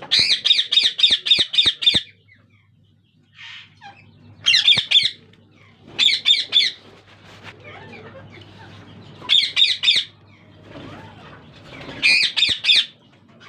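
Ringneck parakeets giving harsh, rapid screeching calls in five bursts, the first and longest lasting about two seconds.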